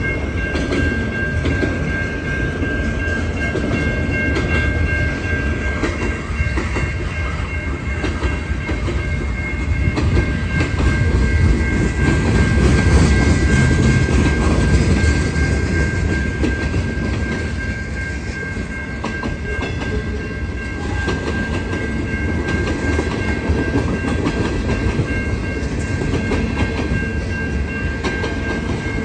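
Freight cars of a passing CN freight train rolling by close at hand: a steady heavy rumble with the clickety-clack of wheels over the rail joints, swelling a little around the middle. A few steady high tones run underneath throughout.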